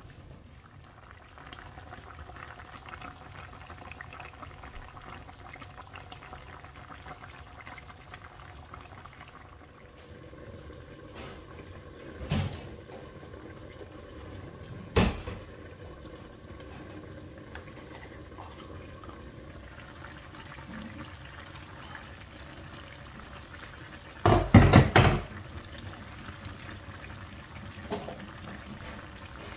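Chicken and pineapple sauce bubbling steadily in an uncovered pot on high heat, reducing to thicken. A few sharp knocks break in, the loudest a short cluster about four-fifths of the way through.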